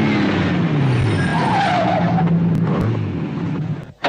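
Lamborghini Miura P400 SV's V12 engine revving hard, its pitch wavering, with tyres squealing for a moment in the middle. The sound cuts off abruptly near the end.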